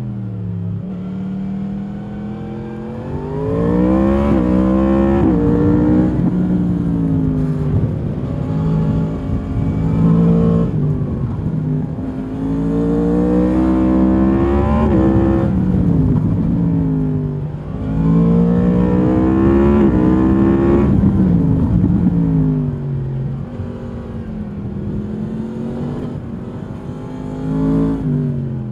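Stock exhaust of a 2022 Yamaha MT-10's crossplane inline-four engine heard from the rider's seat, accelerating hard several times, each time rising in pitch and then falling back as the throttle is rolled off.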